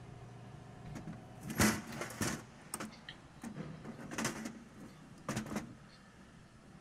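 A series of about six short knocks and scuffs at irregular intervals, the sounds of handling and moving about among metal parts and tools, over a faint low hum that fades out in the first second or so.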